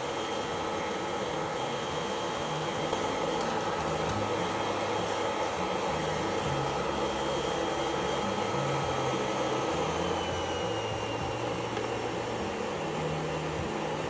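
Nail dust collector's fan running steadily, with a high whine that dips slightly in pitch about ten seconds in.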